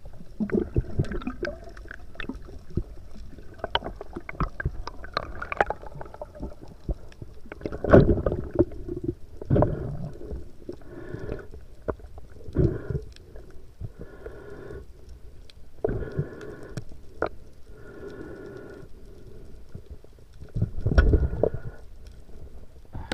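Muffled underwater sound picked up through an action camera's housing: water rushing and sloshing with many short knocks and clicks as a speared grouper is handled on the spear shaft, with heavier surges about eight seconds in and again near the end.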